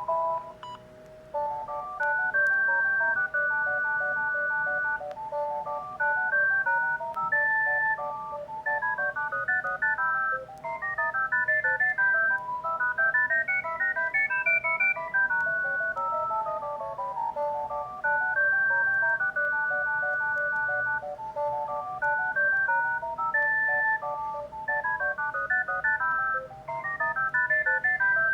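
Panasonic GD75 mobile phone playing a polyphonic ringtone: a synthesized melody of short stepped notes over a steady held tone. It starts after a short gap about a second and a half in, and the tune loops and starts over after about sixteen seconds.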